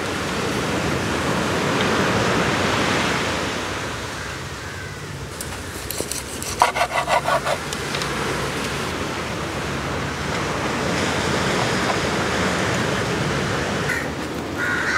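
Steady rush of sea surf, with a quick run of about seven knife chops through raw chicken onto a wooden cutting board about halfway through.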